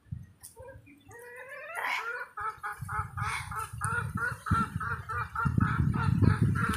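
Domestic fowl calling: a few rising calls, then a rapid run of harsh repeated calls at about four a second. A low rumbling noise runs underneath from about three seconds in and is loudest near the end.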